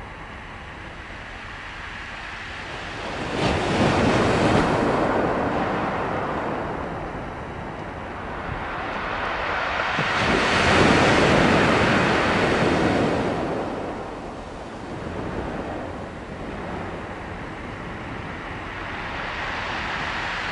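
Ocean surf: waves breaking and washing up the shore in slow surges, the loudest about three and a half seconds in and again from about ten to thirteen seconds in.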